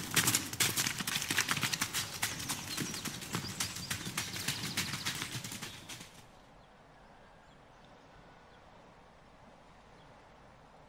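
A dense, rapid clatter of sharp knocks that fades out about six seconds in, followed by near silence.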